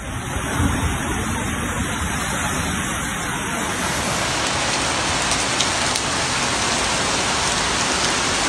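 Steady rushing noise of water: a flash-flood torrent pouring down a street, mixed with heavy rain.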